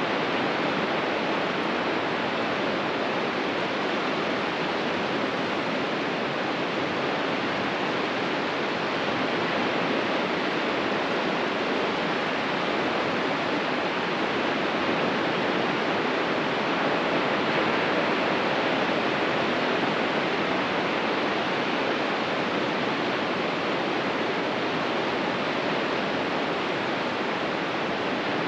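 Ocean surf breaking on a beach, heard as a steady, continuous wash with no single wave standing out.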